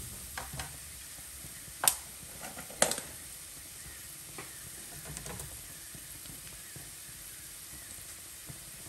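Onion, celery and garlic sizzling in olive oil in a pan, with stirring: two sharp clicks of a utensil against the pan about two and three seconds in, and a few lighter taps.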